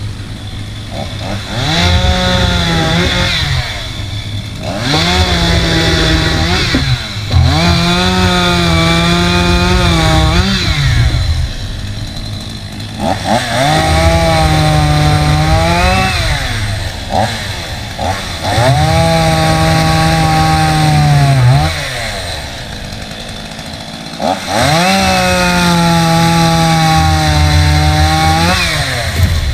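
Stihl two-stroke chainsaw engine repeatedly throttled up: about six times it rises to a high steady whine, holds for two to three seconds, then drops back to idle.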